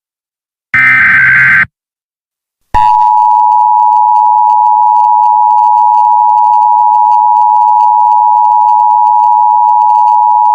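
Emergency Alert System broadcast signal: near the start, a one-second burst of the SAME header's digital data tones, then, after a second of silence, the steady EAS attention tone begins nearly three seconds in and holds.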